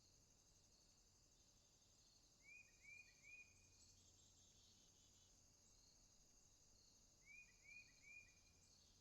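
Faint, steady chorus of insects such as crickets trilling high, with a call of three quick chirps heard twice, about five seconds apart.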